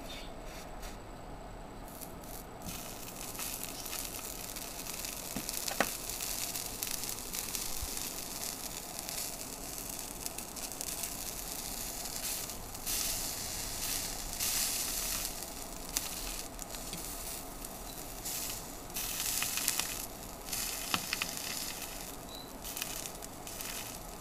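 Slice of bologna sizzling as it fries on the bare heat spreader of an Intel Celeron 1.8 GHz Willamette CPU running without a heatsink, the CPU hot enough to fry meat. The sizzle picks up a couple of seconds in, once the meat is on the chip.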